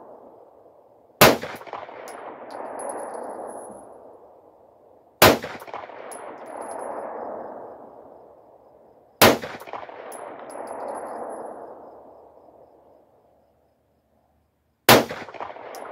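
Four shots from a 9mm Glock 43-pattern pistol (a Polymer80 build), about four seconds apart with a longer pause before the last, each followed by a long echo that rolls off and fades over about three seconds.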